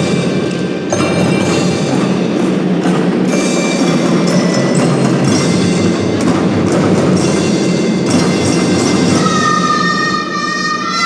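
Children's drum band playing a piece: drums and clicking percussion under ringing, bell-like mallet notes, with two held melody notes sounding together near the end.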